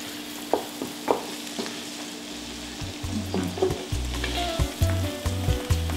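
Diced onions sizzling in a frying pan, with a few clicks from a wooden spatula stirring them. About halfway through, background music with a bass line and held notes comes in over the sizzle.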